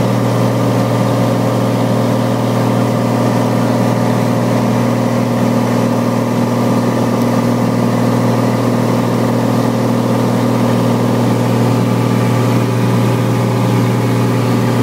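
Cessna light aircraft's engine and propeller droning steadily, heard from inside the cabin.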